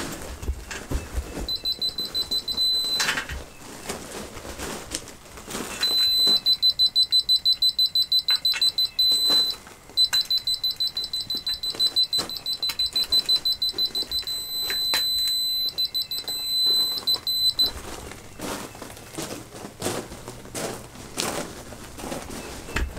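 Laser-level receiver on a grade rod beeping: a high-pitched tone pulsing fast, about seven beeps a second, in three spells with a few short steady tones between. It is the detector signalling where the rotating laser's beam falls on the rod.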